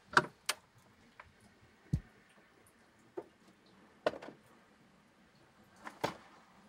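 Cat shifting about in a clear plastic litter box: scattered light clicks and taps of litter and paws against the plastic, with one duller thump about two seconds in and a pair of taps near the end.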